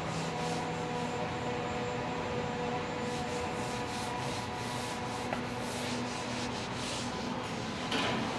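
Hands rubbing and sweeping across a large pale leather hide, a series of soft swishing strokes that bunch together in the middle and come again near the end. A steady machine hum runs beneath.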